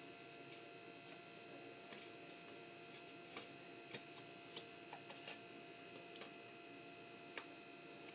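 Faint handling sounds of a small piece of red construction paper being folded into a bow tie on a table: a few soft clicks and taps scattered through the middle, over a steady low room hum.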